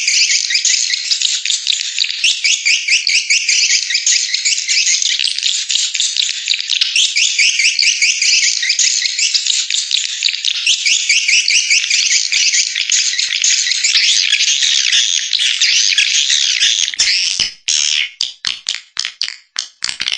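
Swiftlet call recording: dense, continuous high-pitched twittering chirps, used as a lure call to draw swiftlets to a swiftlet house. About three seconds before the end it breaks up into separate short chirps with gaps between them.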